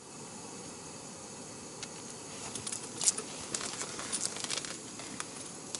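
Steady low hiss with scattered faint ticks, more frequent from about two seconds in.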